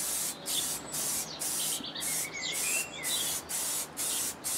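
Aerosol spray paint can hissing in short, repeated bursts with brief gaps, roughly two a second, as rusty engine brackets are recoated black.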